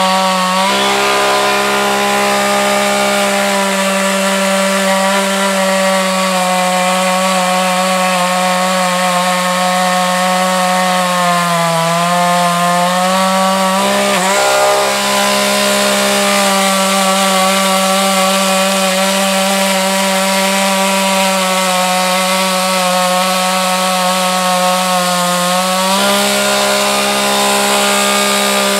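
Gas chainsaw running at high speed as it cuts through a log, with a steady engine note whose pitch sags briefly about halfway through as the chain bites into the wood, then recovers.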